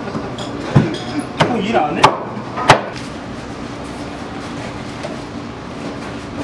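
A butcher's knife strikes the wooden cutting board three times as a large tuna's rib rack is cut apart: sharp knocks in the first three seconds. After them only a steady background hum remains.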